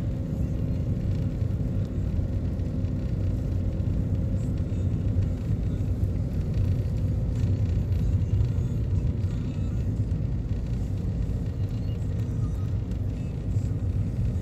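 Steady low rumble of a car's engine and tyres heard inside the cabin while driving slowly along a paved road, with a faint even hum.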